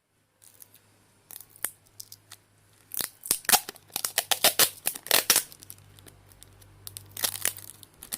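Scotch tape being pulled off its roll in a series of short, sharp rips and clicks, with a pause before a last few rips near the end.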